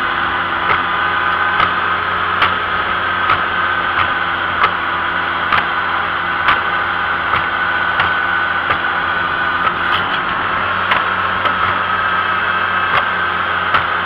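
Vintage tractor engine running steadily as the tractor travels along a road, heard from a camera mounted on the tractor itself. A sharp click or knock comes through about once a second.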